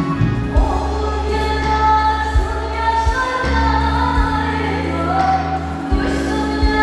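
Live band playing a song with a woman singing lead into a microphone, long held notes over bass and drums, with backing vocals joining in.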